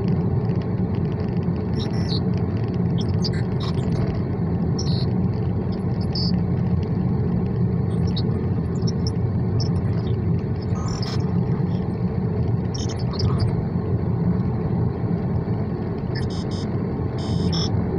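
Steady low rumbling noise inside a car's cabin, with scattered faint short ticks.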